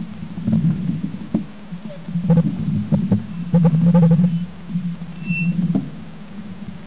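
Rumble and rattle picked up through a fork-mounted camera on a mountain bike as it rolls, with several sharp knocks. The sound grows quieter after about six seconds as the bike comes to rest.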